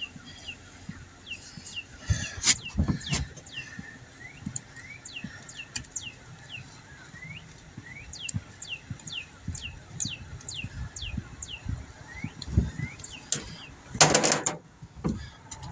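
A bird chirping over and over in short falling chirps, with a few light knocks of tool work. Near the end comes a short, loud hiss.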